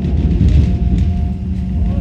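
Hakone Tozan Railway train running: a heavy low rumble with a steady high-pitched tone held over it.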